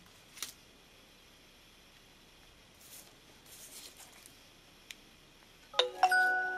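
Nokia C7 smartphone's NFC tag-read tone: a short chime of several notes near the end that rings on and fades, as the phone reads an NFC tag. Before it, light taps and a faint rustle of the tag card being handled against the phone.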